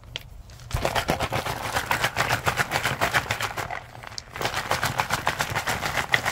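Tumbling rocks and filler clattering inside a sealed rubber rock-tumbler barrel as it is shaken and turned by hand: a fast, dense rattle in two bursts with a short break in the middle.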